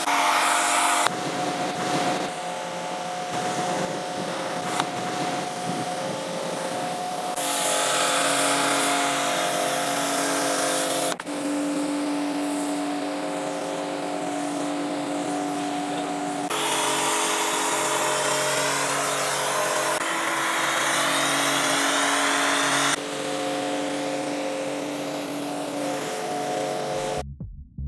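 A car-cleaning machine running with a steady hum under a loud hiss, in a string of short clips that change abruptly every few seconds. It cuts off just before the end, where an electronic music beat starts.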